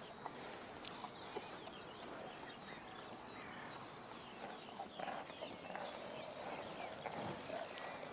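Faint outdoor ambience of small birds chirping in the background, with a few soft clicks.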